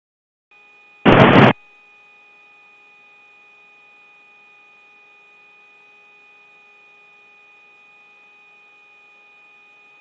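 Military radio channel: a loud half-second burst of noise about a second in, then a faint steady hiss with several steady tones, the thin, narrow sound of an open radio link.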